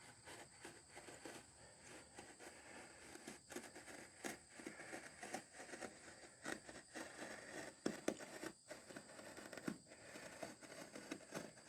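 Faint, irregular scraping and crackling of a blade cutting through a sheet of EVA foam.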